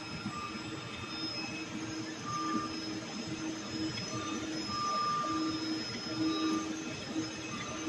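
CNC vibrating-knife cutting machine running as its cutter head travels over cardboard: a steady mechanical whirr from the oscillating blade and the gantry drive. A hum and a higher whine cut in and out every second or so as the head moves.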